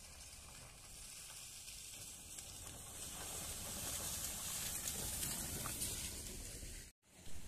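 A small car's tyres hissing and splashing through a muddy, water-filled pothole as it drives up and past, growing louder to a peak about four to six seconds in. The sound cuts off suddenly about seven seconds in, followed by a brief thump.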